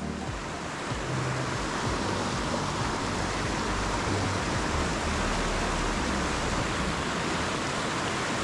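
River rapids rushing steadily over rocks: an even, unbroken water noise.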